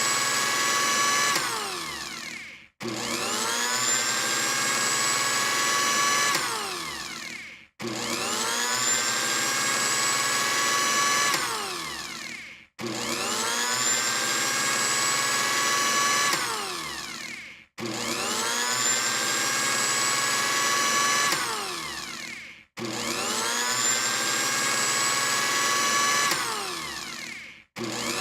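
Electric blender motor switching on with a whine that rises in pitch, running steadily for a few seconds, then winding down in pitch and stopping. The same cycle repeats about every five seconds.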